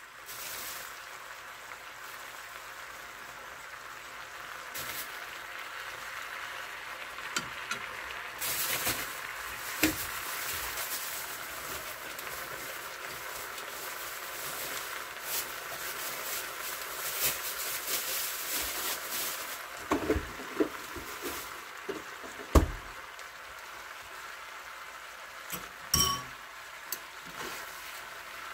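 Sundae stir-fry sizzling steadily in a frying pan, with a few clinks and knocks of a metal spoon and chopsticks against the pan, the sharpest about two-thirds of the way in.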